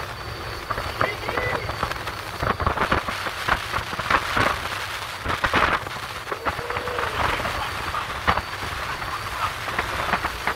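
Small motor yacht running over the sea: water rushing and splashing along the hull in a dense hiss, with many irregular slaps as it meets the waves and a low rumble underneath.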